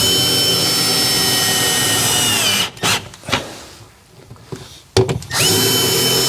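Power drill driving screws into plywood: a steady motor whine for about two and a half seconds that drops in pitch as it stops, a few knocks, then a second run of the drill starting again near the end.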